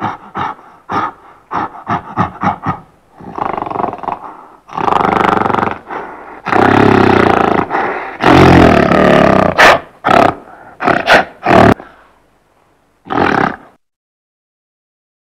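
Gorilla calling: a quick series of short grunts, then several long, loud roars, then a few more short calls.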